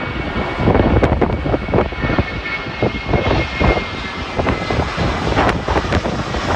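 Airliner engines running as an aircraft passes, with a faint high whine in the first half, under heavy wind buffeting on the microphone.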